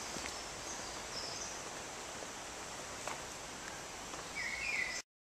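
Faint woodland ambience: a steady outdoor hiss with a few short, faint bird calls, higher-pitched about a second in and lower near the end. The sound cuts off suddenly about five seconds in.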